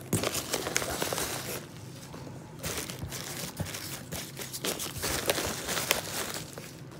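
Bubble wrap and foam packing peanuts rustling and crinkling as a hand digs through a cardboard shipping box, with many small crackles and clicks and a short lull about two seconds in.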